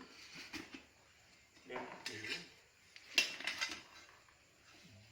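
Metal tools and small metal parts clinking and rattling as they are handled, in two clusters of strikes about two seconds in and again around three seconds.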